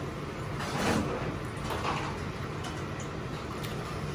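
Large stockpot of water at a rolling boil on a kitchen range, a steady rushing noise, with two soft splashes about one and two seconds in as chicken pieces are dropped into it.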